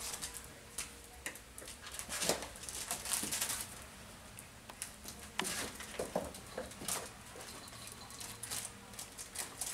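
Cavapoo puppies moving about on a tile floor: scattered, irregular clicks and patters of paws and claws, with scuffling as they play with toys.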